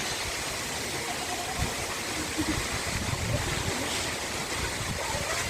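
Steady rush of flowing water with a few dull low knocks.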